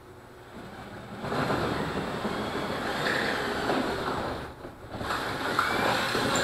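Cordless drill running with a 1/4-inch bit, boring out a pilot hole through the wing-tip tube of an ultralight, in two bursts with a short pause a little past halfway.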